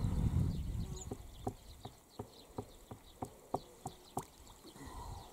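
Small water splashes and plops from hands working at the water's surface, heard as short sharp clicks about two or three a second at an uneven pace. A low rumble in the first half second dies away.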